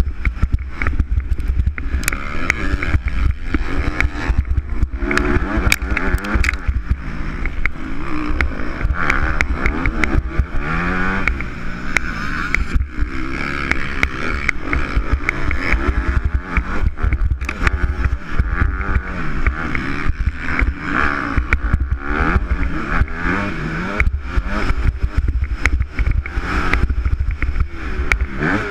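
Motocross bike engine at race pace heard from a rider-mounted camera, revving up and dropping back again and again through gear changes and turns. Heavy wind rumble on the microphone and scattered sharp knocks run under it.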